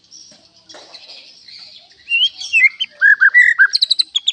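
White-rumped shama singing: after a faint high hiss, about two seconds in it breaks into loud, clear whistled notes, several sliding down in pitch, in a quick varied series.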